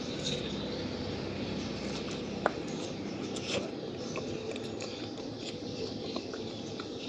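Close-miked eating sounds: soft, wet chewing and small clicks over a steady background hum, with one sharp click about two and a half seconds in.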